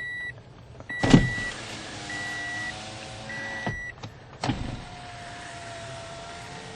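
2015 Toyota Corolla power window motor running the glass: a click, a steady whine for about two seconds that stops, then another click and a second run of about three seconds. A car's warning chime beeps evenly, about once a second, through the first half.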